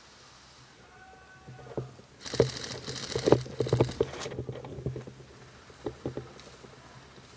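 Rustling, clicks and knocks from a gun-mounted camera on an airsoft rifle as it is handled and carried, in a dense two-second spell about two seconds in and a few more knocks near the end.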